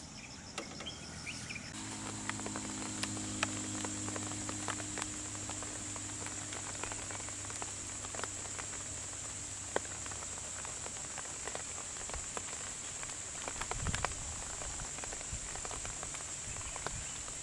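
Steady high drone of insects in roadside forest, with scattered small snaps and rustles of vegetation as a wild Asian elephant feeds. A low engine hum runs from about two seconds in until about ten seconds in.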